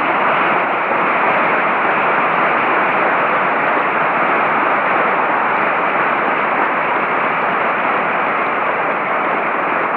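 Audience applauding, a steady even clatter of many hands clapping.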